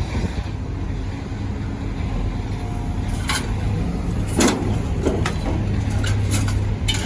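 Steady engine running, with a series of sharp metal clanks from scrap metal being dragged out of a truck bed. The loudest clank comes about four and a half seconds in.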